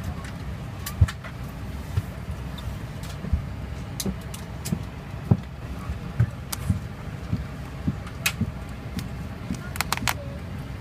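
Steady low hum of an Airbus A319 airliner cabin parked at the gate, with scattered clicks, knocks and paper rustles as a magazine and safety card are handled and pulled from the seat-back pocket, busiest near the end.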